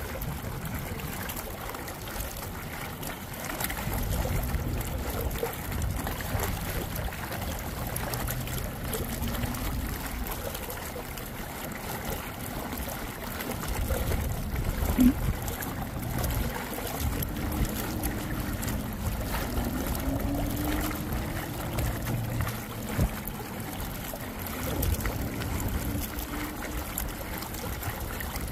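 Small inflatable electric boat cruising slowly: water washing and lapping along the hull, with a low rumble coming and going, and one sharp click about halfway through.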